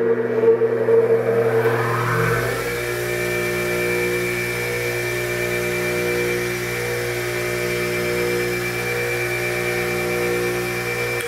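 Bench grinder (3450 RPM) with new 36- and 80-grit wheels running up to speed: the motor whine rises over the first two seconds or so, then settles into a steady run with a mains hum and a slow wavering in the tone. The grinder is vibrating roughly, which measures 2.4 g.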